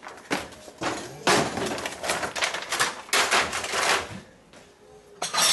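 Clattering and scraping of food containers being handled, a run of quick knocks and rustles lasting about four seconds, then one sharp knock near the end.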